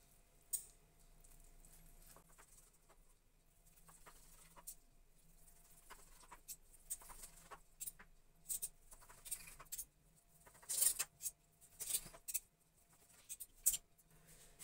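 Knife slicing through a roast turkey tenderloin on a plastic cutting board, with the blade and a fork clicking and scraping against the board. The taps and scrapes are sparse at first and come closer together and louder in the second half.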